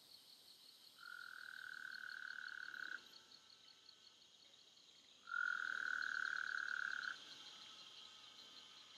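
A frog trilling at night: two long, steady trills of about two seconds each, the first starting about a second in and the second about five seconds in. Under them runs a steady, fast-pulsing chirr of insects.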